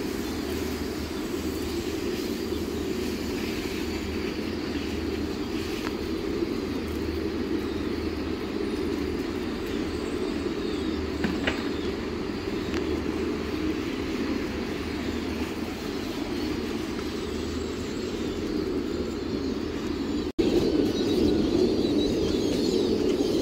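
Steady din of many pigeons cooing together, blending into a continuous low drone. It cuts out for an instant near the end and comes back louder.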